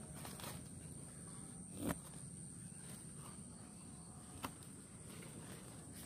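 Faint rustling and brushing of broad plant leaves being pushed aside by hand, with two sharp clicks, one about two seconds in and one past the middle, over a steady high whine.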